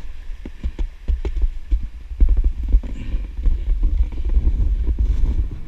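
Skiing down through snow, heard from a body-worn camera. Wind rumbles on the microphone while irregular knocks and thumps come from bumps and the camera housing.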